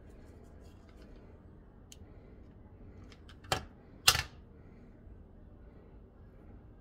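Hands handling a plastic candle holder while wrapping cord around it: faint rustles and small clicks, with two short knocks about half a second apart a little past the middle, the second the louder.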